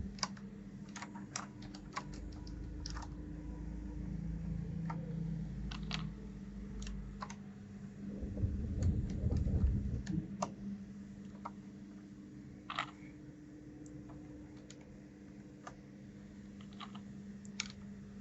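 Sparse, irregular clicks from a 1st Player DK 5.0 mechanical keyboard as its keys and keycaps are worked, about one or two a second, over a steady low hum.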